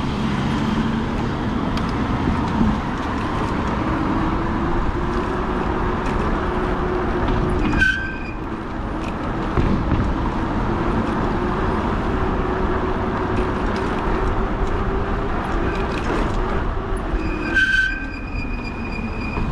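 Rushing road and wind noise from riding a modded fat-tire e-bike in traffic. A steady hum runs through the middle. Two short high-pitched squeals come, one about eight seconds in and one near the end.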